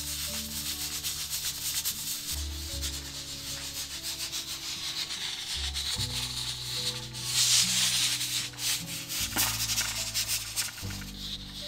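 Steam hissing and sputtering out around the weighted valve of an aluminium pressure cooker heated on a wood fire, louder for a stretch a little past halfway. Background music with slow bass notes plays underneath.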